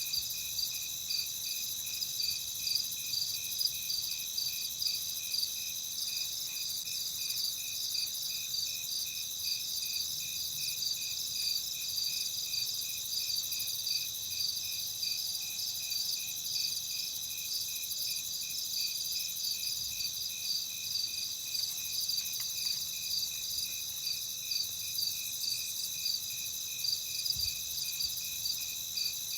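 Night chorus of crickets and other insects: several high chirping trills overlapping steadily, the lowest one pulsing regularly a few times a second.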